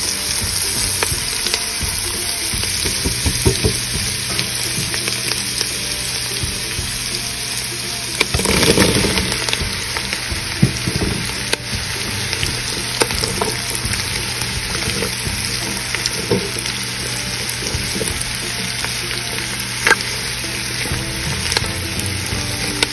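Chopped onion, carrot, celery and butternut squash sizzling steadily as they fry together in a pot, stirred with a silicone spatula that gives scattered scrapes and taps; the sizzle swells louder for about a second some eight seconds in.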